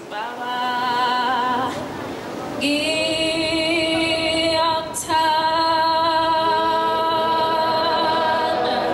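Congregation singing a hymn unaccompanied, women's voices leading, in long held notes, with short breaks between phrases about two and five seconds in.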